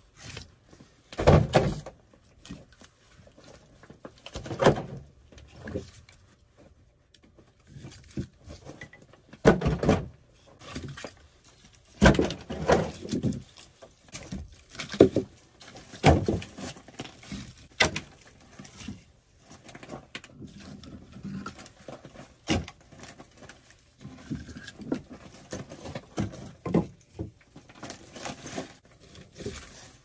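Split firewood logs knocking and clattering against each other as they are picked up from a woodpile and stacked into an armload, in irregular knocks a second or several apart.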